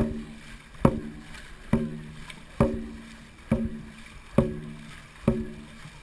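Dragon boat drum beaten steadily to set the paddling stroke, about one beat a second, each hit ringing briefly.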